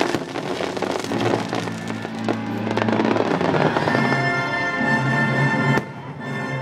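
Aerial fireworks shells bursting and crackling over the show's accompanying music. The sound drops away suddenly for a moment about a second before the end.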